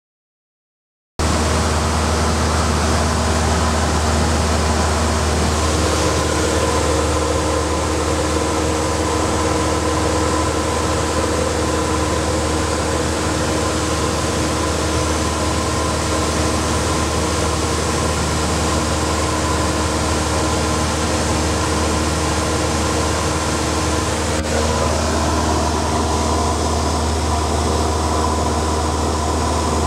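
Single-engine light aircraft's engine and propeller droning steadily, heard from inside the cockpit; it cuts in suddenly after about a second of silence. Well into the clip there is a click, after which the engine note rises slightly.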